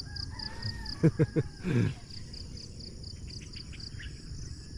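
Crickets chirping steadily in an even, rapid pulse. A brief run of short, low, loud calls about a second in.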